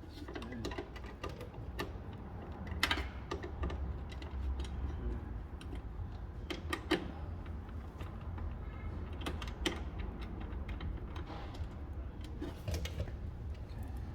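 Irregular light clicks and taps, with a few sharper knocks, from hand tools and door-latch parts being worked on.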